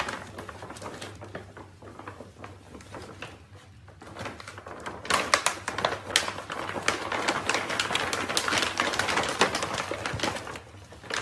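Crinkling and rustling of a foil-lined pet food bag as puppies climb inside and tug at it, quieter and sparse at first, then a dense, louder crackle from about five seconds in.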